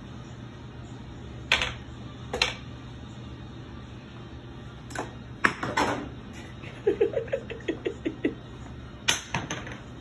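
Small wooden toy blocks knocking and clattering: a few single sharp knocks, then a quick run of light taps as one rattles on the hardwood floor, and a last cluster of knocks near the end.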